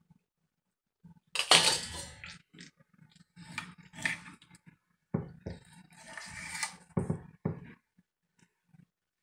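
A knife cutting raw octopus and hands working it on a marble board, heard as irregular noisy bursts in three clusters, about a second or two each.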